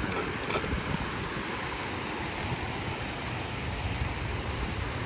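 Sea waves washing over a shallow beach, with wind buffeting the microphone in a low, uneven rumble.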